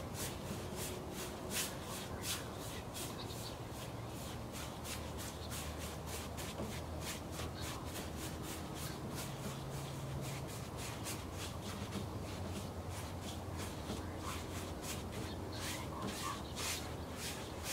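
Large bristle brush scrubbing paint onto a canvas wet with liquid white in quick short strokes, a scratchy rubbing about two to three strokes a second.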